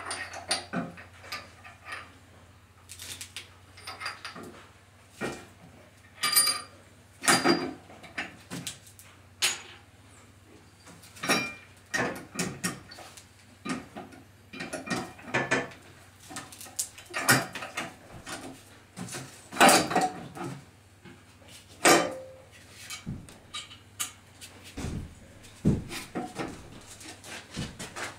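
Small metal hardware clinking and knocking at irregular moments: washers, nuts and bolts being handled and fitted on a wooden cart, some strikes ringing briefly.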